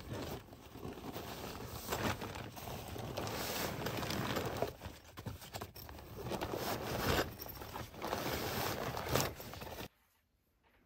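Rustling and crinkling of tent fabric and its storage bags being handled close to the microphone, with several louder swishes. It stops abruptly near the end.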